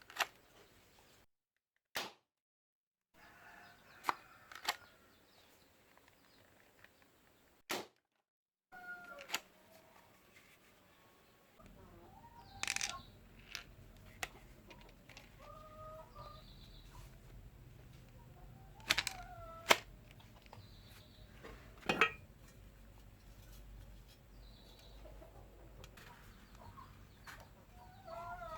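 Scattered sharp snaps from a homemade PVC-pipe toy gun, about a dozen spread out with gaps, while chickens cluck in the background.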